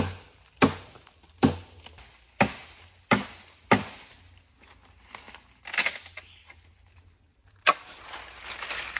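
Dry sticks being broken up for firewood: about six sharp cracks in the first four seconds, then a few fainter ones. Near the end a steady rush of river water comes in.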